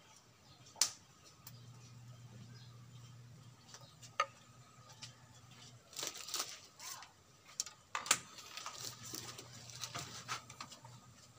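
Thin green bamboo stems handled over a wooden stool: a few sharp taps and clicks as a piece is knocked and set down on the wood, with lighter ticking in between, over a faint low hum.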